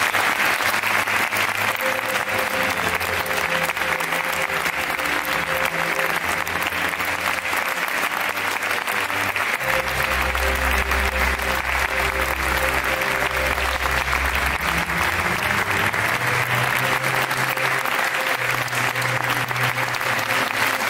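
Audience applauding steadily, with music of held low notes playing underneath.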